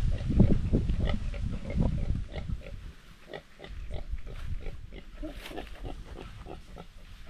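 A pig grunting in short, rapid strokes, several a second, louder for the first couple of seconds and then fainter. The pig is tangled in sticks and has gone without water in the heat.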